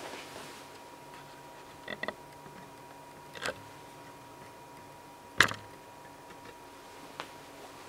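A handful of short, sharp clicks at irregular intervals, the loudest a little past halfway, over a faint steady high hum.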